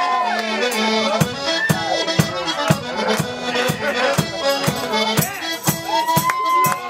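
Live folk band music: a melodeon carries the tune over tuba and bass. About a second in, a drum beat enters at roughly two strokes a second.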